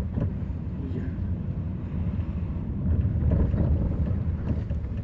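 Low rumble of a car driving, heard from inside the cabin, with wind buffeting the microphone.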